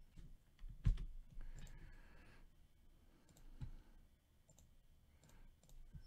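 Faint desk handling noise: a few scattered light clicks and two dull thumps, the first about a second in and loudest, the second softer at about three and a half seconds.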